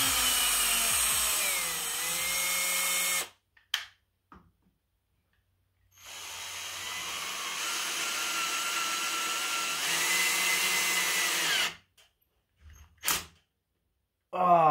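Cordless drill turning a thread tap into a bolt hole in the three-wheeler's engine case. It runs in two long stretches, and the motor's pitch dips and shifts as the tap loads up. A few short blips of the drill come near the end.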